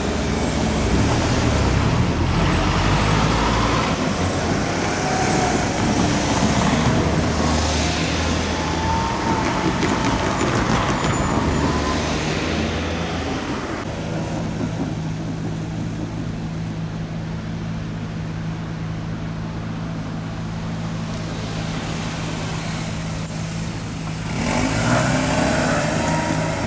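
Engine and road noise of vehicles passing for the first half. From about halfway, a steady low engine hum, as of an idling engine, holds until louder passing noise returns near the end.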